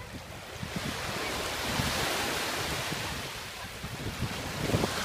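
Small waves washing up over the sand at the water's edge: a surf hiss that swells about a second in and eases off after about three seconds. Wind buffets the microphone underneath.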